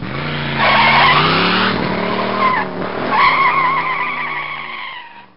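A car engine revving with tyres squealing, the squeal loudest about a second in and again about three seconds in, then fading out near the end.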